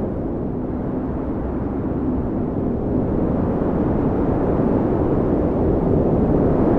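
Cold blizzard wind blowing steadily, a deep rushing howl that eases a little and swells again about halfway through.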